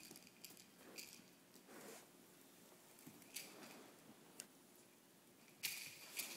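Faint, scattered scuffs, clicks and rustles of a puppy playing. The loudest rustle comes near the end.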